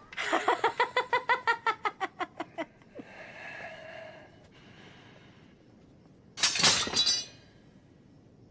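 A woman laughing loudly in quick pulses that fade out after about two and a half seconds. A brief, loud, harsh burst of sound follows near seven seconds in.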